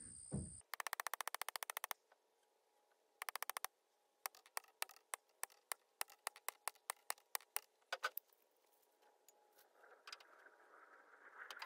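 Metal hammer blows on the top of a steel ground rod being driven into the ground: two fast runs of sharp strikes, then single strikes about four a second.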